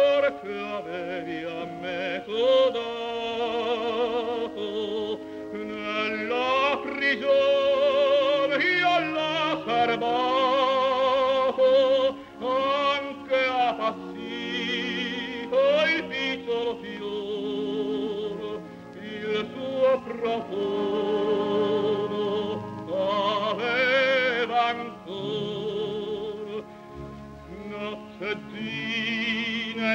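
Operatic tenor singing with a wide vibrato over a sustained orchestral accompaniment.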